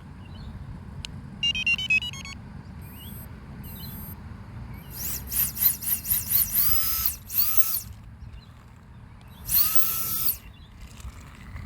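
Electric ducted fan on a modified toy RC car: a few short beep tones, then the fan spinning up in short throttle bursts, a high whine that rises sharply and falls away each time, several times in quick succession and once more near the end.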